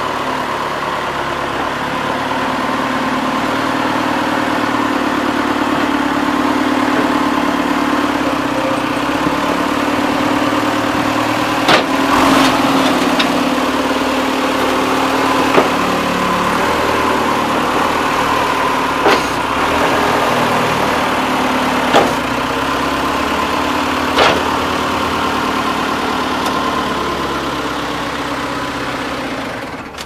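Case 580 Super K backhoe loader's diesel engine running steadily, with a handful of sharp metal clanks from the loader spread through it.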